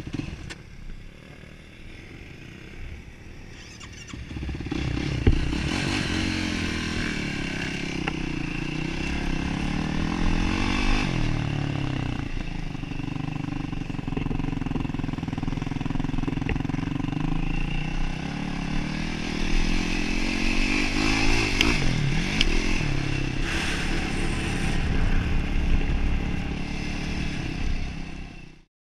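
Single-cylinder four-stroke off-road engine, heard close up from the rider's own machine. It runs low for the first few seconds, then from about four seconds in pulls away and revs up and down repeatedly while riding.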